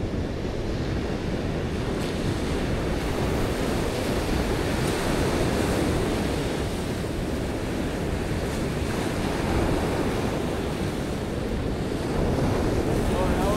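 Ocean surf washing onto a sandy beach, with wind buffeting the microphone: a steady rushing noise, heaviest in the low end.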